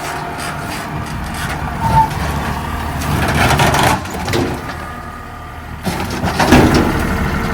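A vehicle engine running steadily, with a short knock about two seconds in and louder noisy rattling stretches about three seconds in and again near the end.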